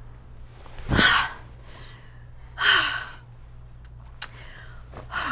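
A woman's heavy breathing during sex: two loud breathy gasps about a second and a half apart, a short sharp click, then another gasp starting near the end.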